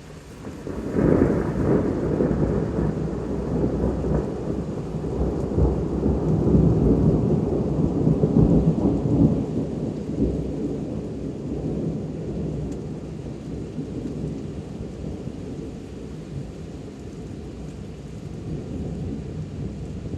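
A long roll of thunder that starts suddenly about a second in, rumbles and swells again in the middle, then slowly fades, over steady rain.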